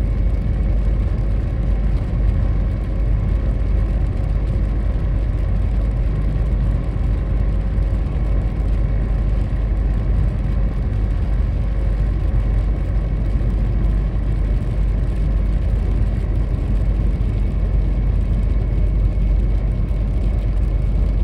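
Steady road noise heard inside a car cruising on a wet expressway: the low drone of tyres and engine, with a faint steady hum above it.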